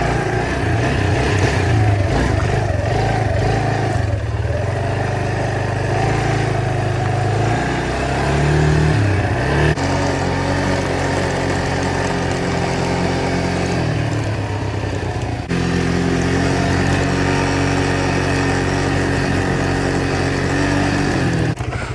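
Four-wheeler (ATV) engine running while riding along a trail. Its pitch rises about eight seconds in, shifts abruptly near ten seconds, dips and comes back up a few seconds later, following the throttle.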